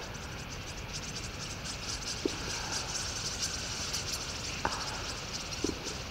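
Thousands of common starlings leaving their roost overhead: a dense whoosh of wings that swells in the middle, broken by a few brief sharp sounds.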